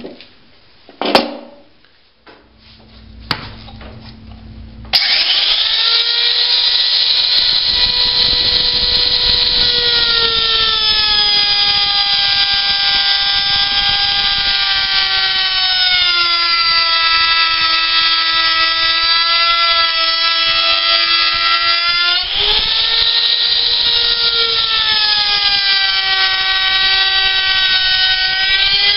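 An electric power tool cutting wood: after a couple of knocks it starts about five seconds in and runs with a steady whine, the pitch sagging for several seconds as the motor works under load and then climbing back up.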